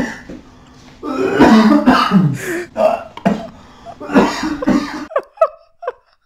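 A man coughing hard several times in rough bursts, then breaking into short, high-pitched giggles near the end.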